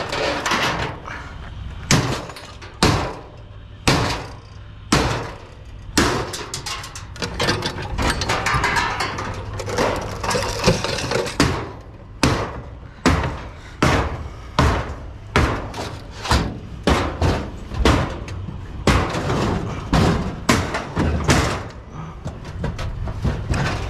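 Hammer striking scrap metal again and again, sharp separate blows about one a second at first, coming quicker in the second half.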